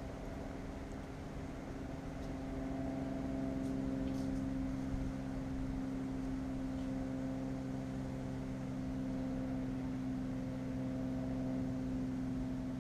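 Steady hum of a running machine, a low drone with several even tones, getting a little louder about two seconds in.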